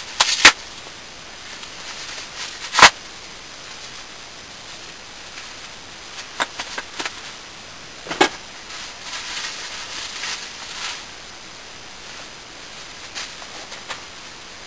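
Bubble wrap being handled and pulled apart: a few sharp, loud pops, two just after the start, one about three seconds in and one about eight seconds in, with smaller clicks and crinkly plastic rustling between them.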